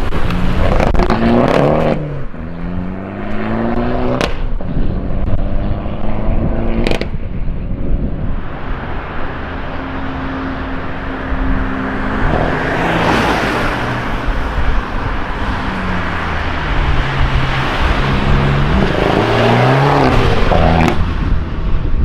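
Modified Fiat Abarth 595's turbocharged four-cylinder engine and aftermarket exhaust revving and accelerating, its note rising and falling several times. Two sharp exhaust cracks come about 4 and 7 seconds in.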